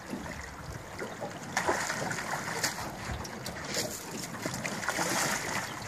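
Shallow river water sloshing and splashing around a steelhead held in a landing net and the wading legs around it, with irregular swishes and wind rumbling on the microphone.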